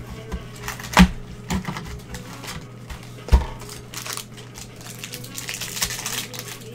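A cardboard trading-card box handled and opened with gloved hands: a sharp knock about a second in and another past three seconds, with scattered clicks, then rustling and crinkling of the cardboard and wrapping near the end. A steady low hum runs underneath.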